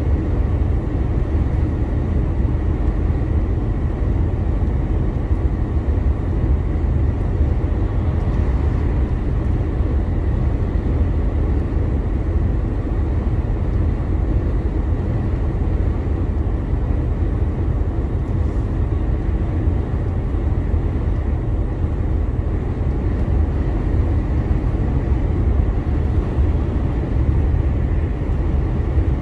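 2021 DAF CF 480 lorry's six-cylinder diesel engine and road noise while driving: a steady low drone with no change in speed or gear.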